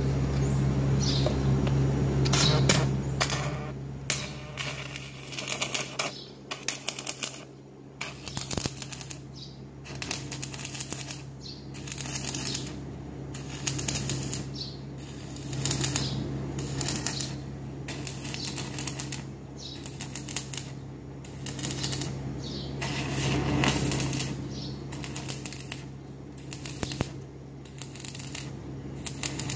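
Electric arc welding on a cracked engine exhaust manifold, the arc crackling and sputtering in runs of about a second with short breaks as the weld fills the crack. A steady low hum lies under it.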